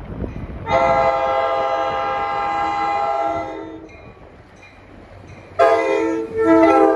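NJ Transit commuter train's horn sounding as it approaches a road crossing: one long, steady blast of about three seconds, then a second blast starting about five and a half seconds in that drops in pitch as the train comes by.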